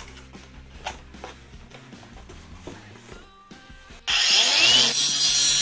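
Faint background music and cardboard rustling, then about four seconds in a loud FLEX 24V brushless angle grinder cutting through a metal rod cuts in abruptly, a steady high whine over a harsh hiss of wheel on metal.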